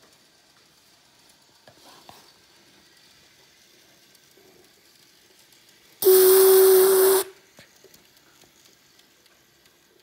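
Steam-whistle sound effect: a loud, steady whistle tone over hiss, lasting just over a second about six seconds in, starting and cutting off sharply. The rest is faint.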